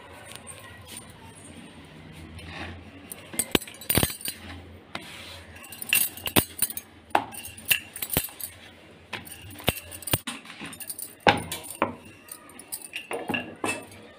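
Rolling pin knocking and clattering on a rolling board while dough is rolled out thin, in irregular clusters of sharp clicks and knocks.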